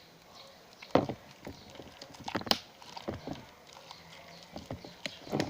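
Homemade glue-and-detergent slime being handled and kneaded by hand: a few sharp clicks and pops, the loudest about a second in and two more around two and a half seconds in.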